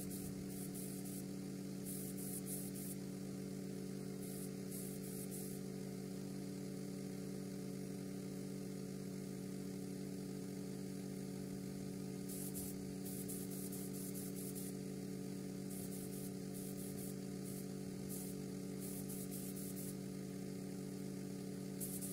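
Paint spray gun hissing in repeated short bursts while brake calipers are spray-painted, over a steady low machine hum.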